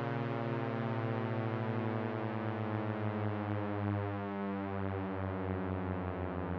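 Low, sustained warning-siren drone made of several layered tones, some gliding slowly upward and others downward, with the lowest tones pulsing as they beat against each other.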